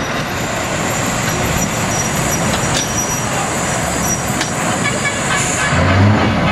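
Scania 164G tractor unit's V8 diesel engine running as the truck pulls away at low speed, with a thin high whine over it for most of the time and a short, stronger low surge of the engine near the end.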